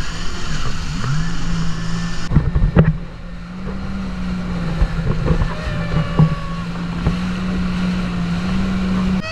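Yamaha WaveRunner jet ski engine running at speed, its pitch stepping up about a second in and again a few seconds later. Wind buffets the microphone throughout, with a cluster of knocks between two and three seconds in.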